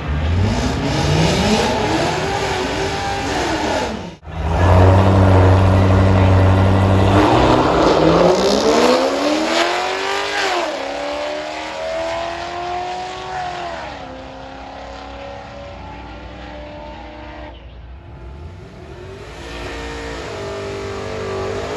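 Drag-race engines at full throttle as vehicles launch and pull away, the engine note climbing and dropping back several times through gear changes, with a steady held high rev in between. The sound breaks off abruptly twice as clips change.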